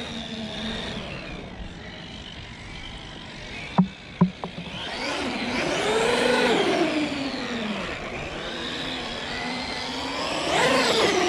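Traxxas X-Maxx 8S RC monster truck's electric motor and gears whining, rising in pitch as it speeds up and falling as it slows, twice, with the gear noise the owner notes every X-Maxx has. Two sharp clicks come about four seconds in.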